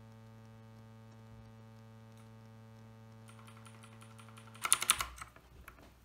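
A steady electrical hum that stops near the end, when a quick burst of loud clicks comes in: keystrokes on a mechanical keyboard with clicky Outemu Blue switches, followed by a few fainter clicks.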